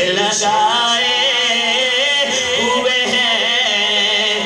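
A man singing an Urdu devotional naat into a microphone, holding long melismatic notes that waver up and down in pitch.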